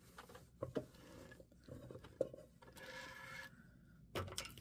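Denim jeans being handled on the sewing table: faint rubbing and scraping of the fabric, with a few light clicks and a short rustle about three seconds in.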